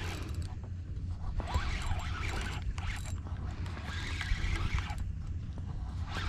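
Spinning reel being cranked to bring in a hooked fish, a scratchy whirring in two stretches, the first about a second and a half in, over a steady low rumble.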